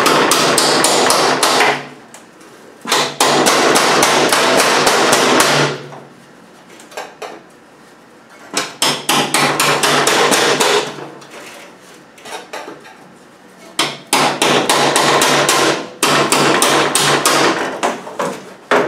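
A hammer tapping a thin chisel to split apart the aluminium seat-box panels of a Land Rover Defender at their spot-welded seam. The blows come rapid and light, several a second, in runs of two to three seconds with short pauses between.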